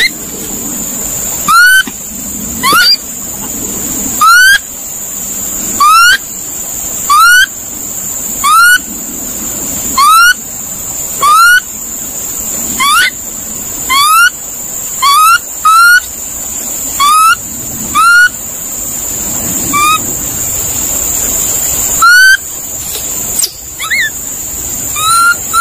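A monkey's call: a short, loud, rising whistled note repeated over and over, roughly every second and a half, over a steady high-pitched whine.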